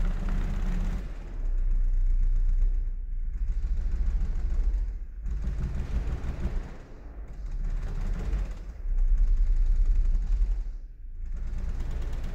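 Homemade MPDP-183264 organ subwoofer playing a 64-foot organ stop as a descending chromatic scale: very deep bass notes that step lower every second or two. Over them the room's walls and doors rattle and buzz from the flexing, rather than the subwoofer itself making noise.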